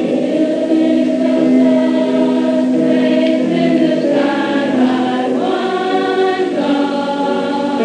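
A choir of girls singing together, holding long notes.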